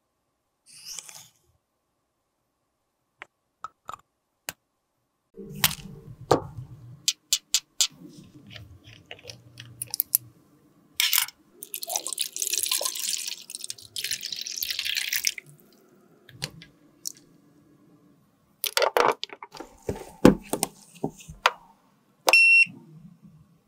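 Clicks and taps of handling, then alcohol poured into a steel tray of glass dropper bottles, a hissing splash lasting about four seconds. More knocks follow, and near the end a short electronic beep comes as the button on a sterilizer box is pressed.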